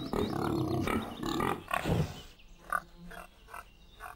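Pigs grunting and oinking: a busy cluster of grunts for the first two seconds, then short grunts one after another.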